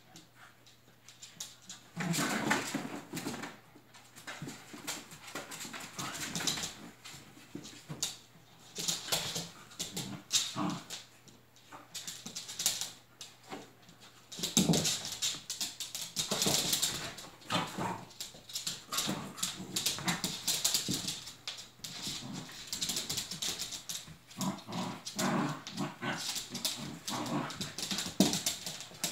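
Icelandic Sheepdog puppies play-fighting: irregular whines and yips, with paws scrabbling on a blanket and puppy pads. The sounds start about two seconds in.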